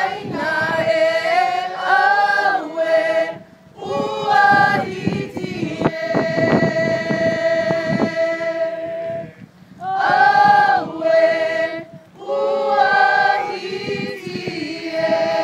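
A group of voices singing together unaccompanied, in phrases with long held notes. There are short breaks between phrases, about three and a half, nine and a half and twelve seconds in.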